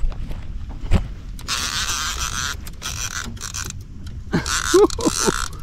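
Fishing reel's drag buzzing as a hooked striped bass pulls line off against it, for about two seconds in the middle. Brief voice sounds from the angler follow near the end.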